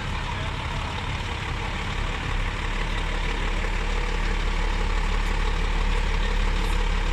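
Heavy truck engine idling steadily, its low rumble growing a little louder about two seconds in.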